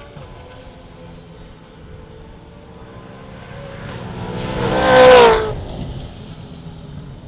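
A Gen3 Supercars V8 race car passes at speed about five seconds in. Its engine note swells to a loud peak and drops in pitch as it goes by, over a low hum of engine noise from cars elsewhere on the track.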